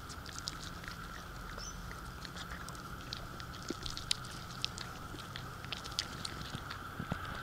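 Kangaroo chewing feed pellets out of a hand: irregular small crisp crunches and clicks, busiest in the middle stretch, over a steady faint hum.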